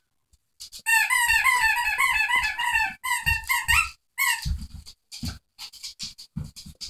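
Squeaky toy squeaked over and over as a puppy chews it: a fast run of squeaks for about two seconds, then two shorter runs. Soft clicks and low thumps of chewing and pawing follow.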